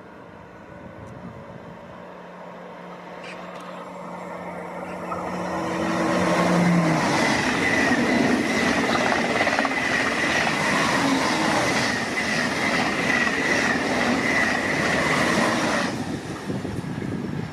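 Two coupled TGV Réseau high-speed trainsets approaching and passing at speed: a distant hum grows into a loud rush of rolling noise about six seconds in, with a steady high whine and a rapid beat of passing wheels while the cars go by, easing slightly near the end.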